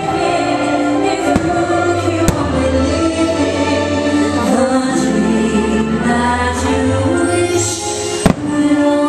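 Choir and orchestral music of a fireworks show soundtrack, with a few sharp firework bangs and a low rumble of bursts beneath; the loudest bang comes about eight seconds in.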